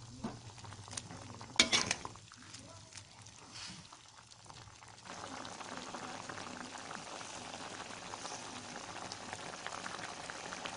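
Squid stir-fry in squid-ink sauce cooking in a wok: the stirring utensil clatters against the pan about two seconds in. From about halfway, the sauce boils with a steady bubbling crackle.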